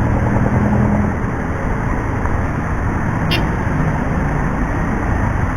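Steady rush of wind and road noise from a motorcycle ride, picked up by a mic inside the rider's helmet, with a low engine hum in the first second and a brief click about three seconds in.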